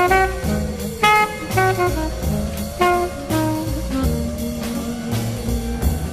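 Background music: a jazz tune with brass and drums.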